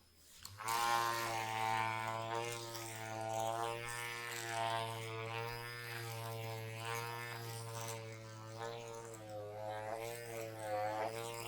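Didgeridoo music starting about half a second in: one steady low drone with overtones that sweep up and down.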